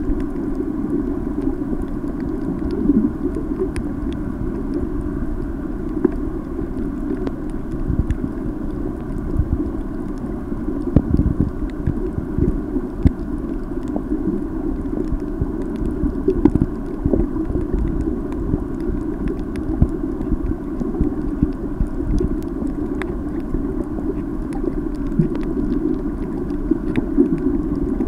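Underwater ambience picked up by a submerged camera: a steady, muffled low rumble of moving water with scattered faint clicks.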